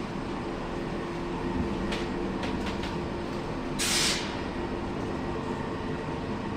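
ThyssenKrupp passenger lift car travelling between floors, heard from inside the car: a steady running hum with a few light clicks around two to three seconds in and a brief hiss about four seconds in.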